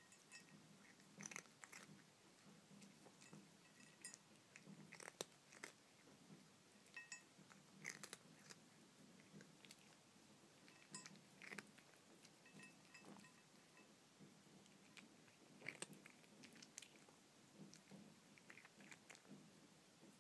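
A cat chewing and crunching dry kibble in irregular bites, with occasional light clinks against a ceramic dish.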